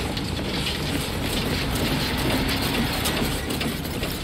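A battered van and a convertible driving side by side: engines running with road noise and a dense, steady clattering rattle.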